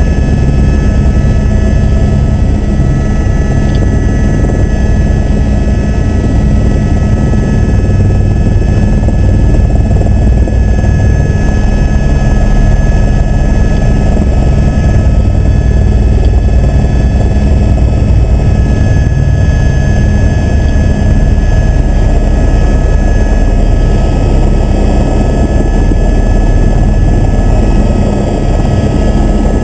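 Helicopter turbine engine and rotor heard from inside the cabin: a loud, steady drone with thin steady whine tones above it.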